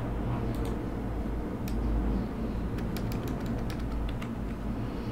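Computer keyboard keystrokes: scattered clicks with a quick run of typing a little past the middle, over a steady low hum.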